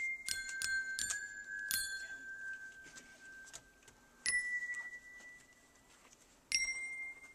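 Glockenspiel bars struck one at a time, each note ringing out: a quick run of strikes in the first two seconds with one note held long, then a single note about four seconds in and another near the end.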